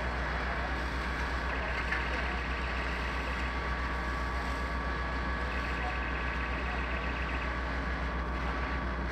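Fire engine's engine and water pump running steadily, pumping water through hoses to the jets being sprayed, with a steady low hum and hiss throughout.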